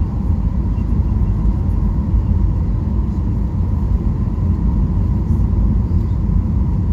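Steady low cabin rumble of a Boeing 737-800 in flight, from its CFM56-7B turbofan engines and the airflow, heard from a window seat inside the passenger cabin, with a faint steady whine above it.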